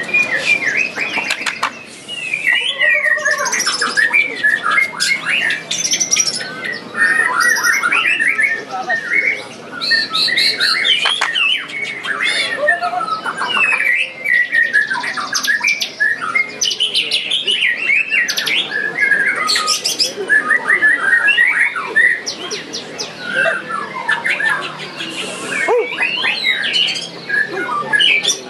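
Several caged white-rumped shamas singing at once: loud, overlapping runs of varied whistles, rapid chatter and gliding notes, with no pause.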